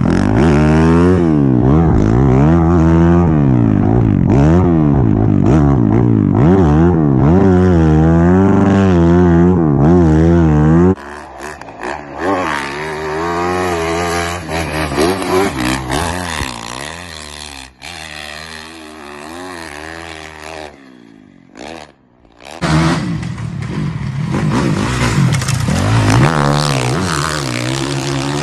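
Dirt bike engines revving hard, the pitch rising and falling again and again as the throttle is worked. The sound suddenly drops away about eleven seconds in to quieter engine running, almost cuts out a little before the last few seconds, then another bike's engine comes back in loud.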